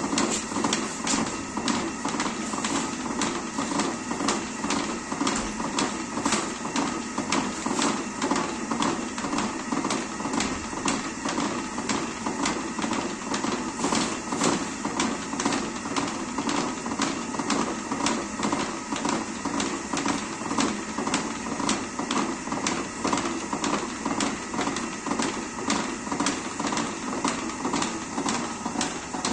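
Potter's wheel spinning steadily, knocking at about two even clicks a second over a low continuous rumble.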